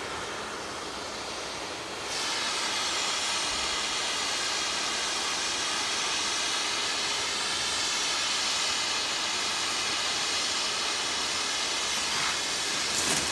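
Steady high hiss of a snowmaking gun blowing snow, which grows louder about two seconds in and then holds. Near the end comes a short swish of skis on snow as a skier passes close.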